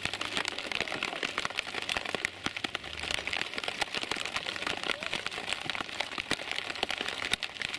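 Heavy rain pattering close to the microphone: a dense, steady crackle of drops hitting, with a faint low hum underneath.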